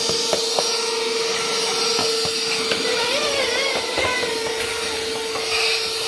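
AIRSEE cordless handheld vacuum cleaner running, a steady motor whine with rushing air, as its nozzle is worked along a hardwood floor and baseboard, with a few light clicks and knocks.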